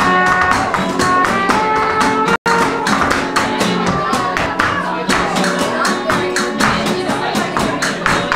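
Live flamenco music: acoustic guitars and a horn over a fast, even rhythm of percussive strikes from a cajón and the dancer's footwork. The sound cuts out completely for an instant about two and a half seconds in.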